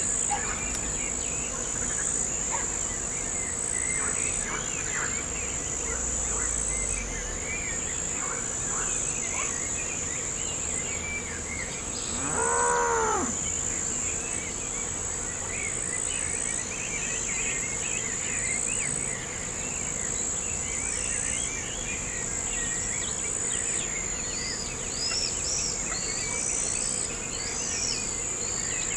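Crickets trill steadily in long on-and-off pulses while small birds chirp now and then. Near the middle a single cattle moo rises and falls for about a second, the loudest sound here.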